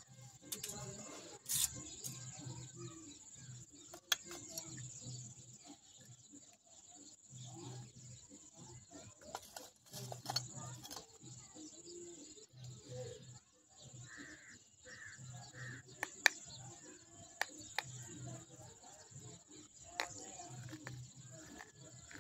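Pieces of a baked clay pot being bitten and chewed close to a microphone: a few sharp snaps and crunches scattered through, with short bouts of low, rhythmic chewing.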